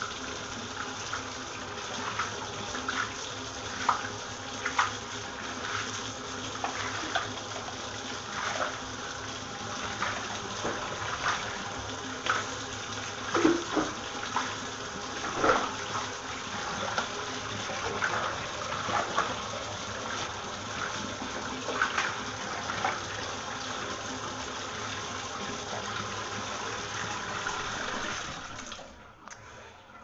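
Water running into a bathtub as the tub is rinsed of cleaner, a steady rush with irregular splashes. The water stops near the end.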